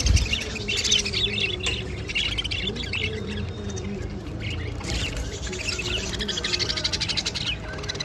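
A flock of budgerigars chattering and chirping, with many overlapping warbles and chirps that run together without pause.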